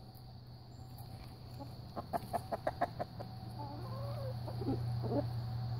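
Backyard chickens clucking: a quick run of short clucks about two seconds in, then a drawn-out wavering call, then a few more clucks. A steady low hum runs underneath.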